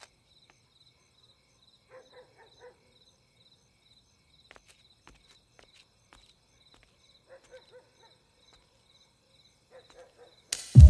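Crickets chirping steadily with a high, evenly pulsing trill over near-quiet night ambience, with two brief clusters of faint short sounds. Music cuts in loudly just before the end.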